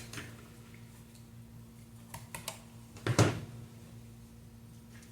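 A few light clicks and then a louder knock as small parts and tools are handled on a workbench, over a faint steady low hum.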